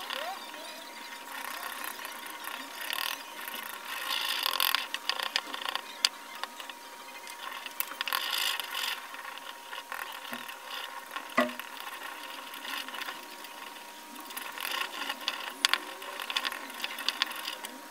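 A stick scraping and clicking against the sides of a small plastic cup as silicone sealant thinned with white gas is stirred, in irregular scratchy bursts.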